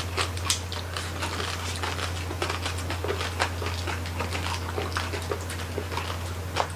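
Close-miked eating of crispy roasted pig with rice: a quick, irregular run of wet smacks, crunches and crackles from chewing, over a steady low hum.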